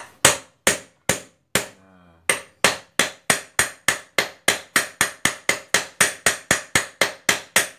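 Hammer tapping a ball bearing around its outer edge to drive it into its seat in a pressure-washer pump, with a bearing that is sitting crooked. A few spaced taps come first, then a steady run of light taps about three a second.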